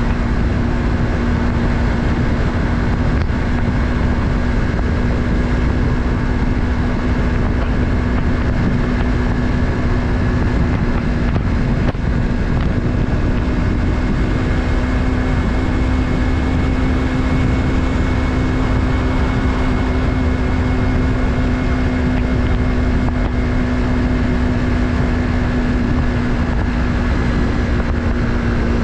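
Yamaha MT-03's parallel-twin engine running steadily under way, its pitch holding almost constant with a slight rise in the middle, over a steady rush of wind and road noise.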